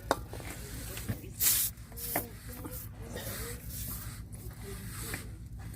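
Tire plug repair tool working in a punctured tire: rubbing and scraping with a few sharp clicks, and a short loud hiss a little over a second in.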